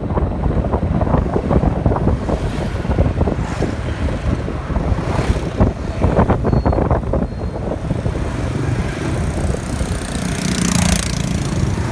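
Motorbike and scooter traffic running along a city street, heard from a moving vehicle with wind buffeting the microphone; a louder vehicle passes close near the end.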